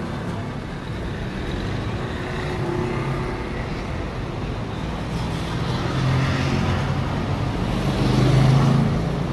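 Street traffic with a car engine running close by, its hum growing louder in the second half.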